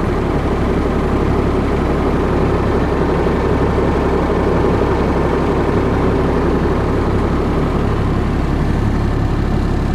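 Service truck's engine and road noise heard from inside the cab while driving on a dirt mine road: a steady low drone.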